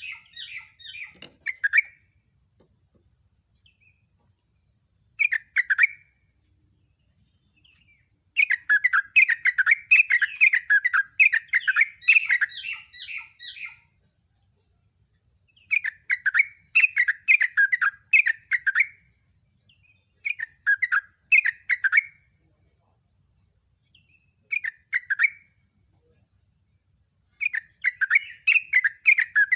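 Yellow-vented bulbul (jogjog/trucuk) singing loud, repeated phrases of quick chattering notes, each phrase a second to several seconds long with short pauses between. A thin steady high whine runs behind the song and drops out briefly about two-thirds of the way through.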